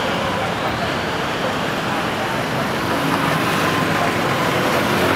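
Busy city street ambience: steady road traffic noise with motor vehicles going by, and voices in the background.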